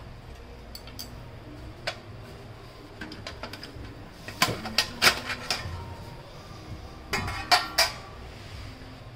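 Steel cover plate of an HP LaserJet Pro M25/M26 printer chassis being worked loose and lifted off: a series of sharp metallic clicks and clanks, scattered at first, then in two louder clusters about four and seven seconds in.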